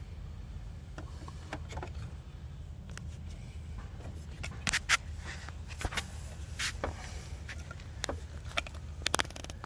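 Scattered clicks and scrapes of hands peeling and cutting old electrical tape off a hose in a car's engine bay, over a steady low hum.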